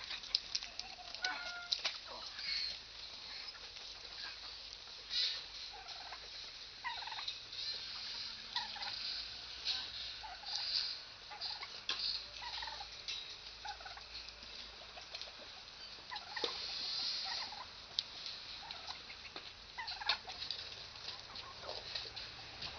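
Turkeys gobbling and calling again and again, mixed with scattered short clicks and knocks.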